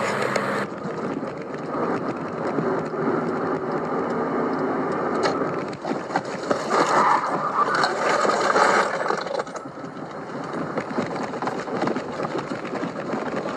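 A car driving, heard from inside the cabin: steady road and engine noise. The sound changes abruptly under a second in, and gets rougher and louder for a couple of seconds near the middle.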